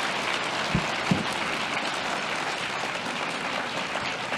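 Audience applauding with steady clapping, easing slightly near the end, and two dull low thumps about a second in.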